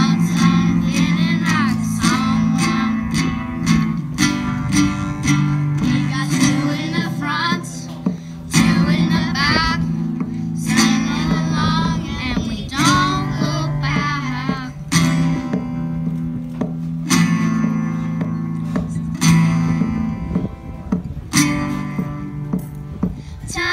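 Children singing a pop song live over strummed acoustic guitars, with the strumming steady and driving throughout.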